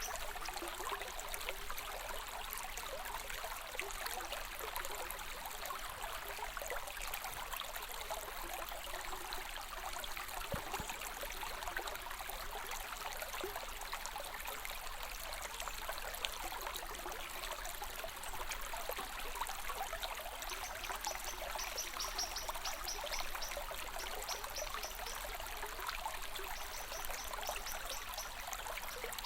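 Running water of a small stream, trickling steadily with no pause.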